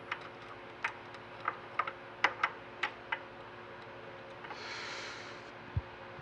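Small metal parts, screws and washers, clicking and tapping as they are handled: about ten sharp clicks spread over the first three seconds, then a brief hiss and a low thump near the end, over a steady machine-shop hum.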